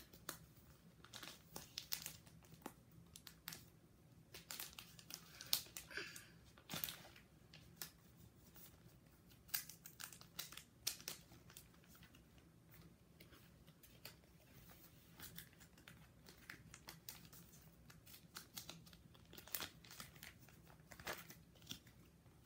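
Clear plastic binder card pages crinkling and rustling as baseball cards are slid into their pockets and the sheets are handled, in short irregular crackles.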